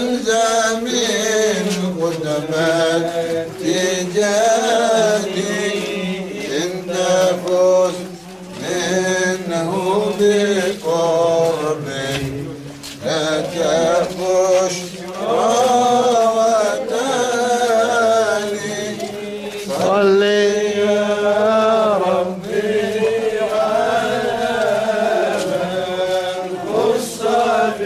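Arabic devotional chant: a man's voice sings a wavering, ornamented melody over a steady held low note, with only brief pauses for breath.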